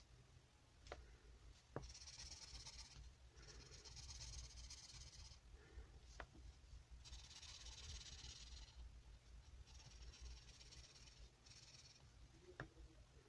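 Felt-tip marker rubbing back and forth on a colouring-book page: faint scratchy strokes, each a second or two long with short pauses between, and a few light clicks.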